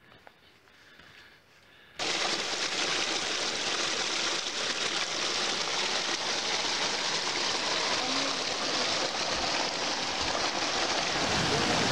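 Small mountain stream rushing over rocks, a steady rush of water that cuts in suddenly about two seconds in after a faint opening.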